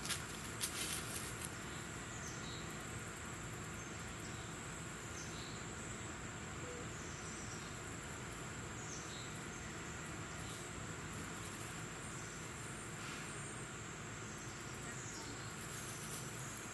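Steady high-pitched drone of insects such as crickets, with faint short sliding chirps every few seconds and a few light clicks near the start.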